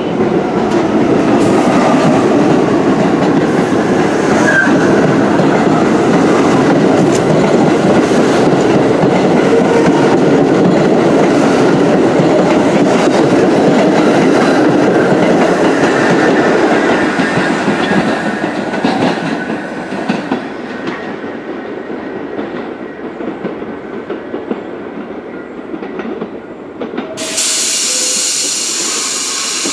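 Bombardier R62A subway train rolling along the platform with wheel and rail noise, slowing and growing quieter after about 18 seconds as it comes to a stop. Near the end comes a short, loud burst of air hiss.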